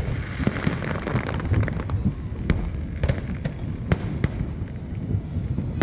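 Aerial fireworks shells bursting: dense crackling for the first couple of seconds, then a string of sharp separate bangs, over a continuous low rumble.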